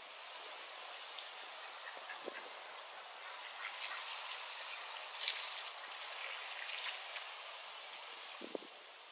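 Steady hiss and fine patter of freezing rain falling on water and dry grass, with scattered small ticks of drops and a couple of louder surges of high hiss about five and six seconds in.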